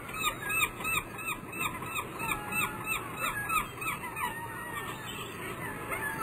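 A bird calling: a quick series of short, squeaky calls, about three a second, that thin out about four and a half seconds in, over a steady background hiss.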